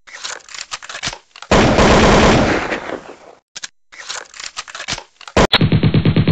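Channel-intro sound effects: scattered sharp cracks like gunfire, then a loud blast about a second and a half in that dies away over about two seconds, then more cracks. Near the end a sharp hit starts a fast, even pulsing.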